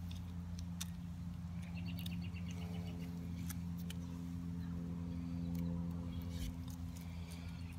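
A steady low hum with scattered faint clicks, and a bird trilling briefly about two seconds in.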